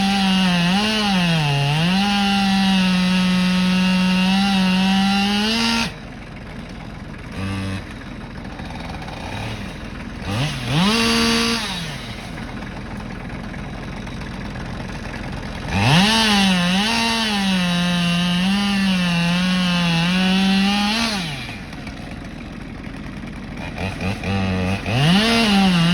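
Two-stroke chainsaw cutting a tree at full throttle, its pitch sagging under load in the cut. About six seconds in it drops to idle, revs briefly, runs at full throttle again for about five seconds, idles, and revs back up near the end.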